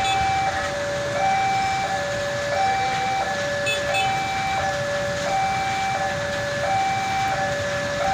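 Railway level-crossing warning alarm sounding its electronic two-tone signal, a higher and a lower tone alternating about every two-thirds of a second, the warning that a train is approaching the crossing. A steady hiss of traffic on the wet road runs underneath.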